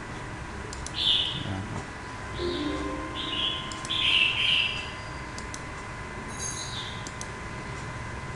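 Several short bird chirps in the background, spaced irregularly, over a faint steady high whine and a few light clicks.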